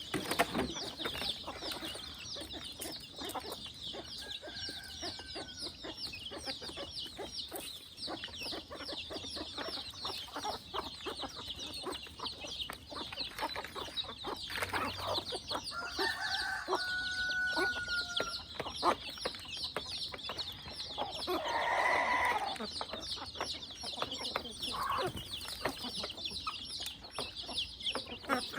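Free-range chickens clucking, over a continuous high-pitched chirping and many small taps and scratches. A drawn-out call sounds about halfway through, and a louder call comes about three quarters of the way in.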